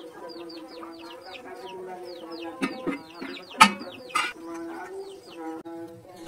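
Chickens clucking, with many short, high, falling peeps, and a few sharp knocks in the middle, the loudest a little after halfway.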